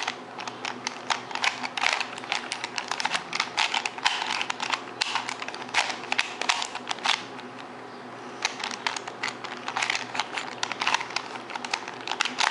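Rubik's cube being turned quickly by hand: a rapid, uneven run of plastic clicks and rattles as the layers twist, with a pause of about a second just after the middle.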